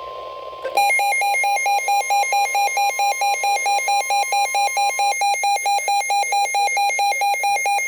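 NOAA Weather Radio's steady 1050 Hz warning alert tone, with a weather radio receiver's alarm starting under a second in: a loud, rapidly pulsing buzzy beep that keeps going after the broadcast tone stops about five seconds in. Together they signal that a new warning is being broadcast.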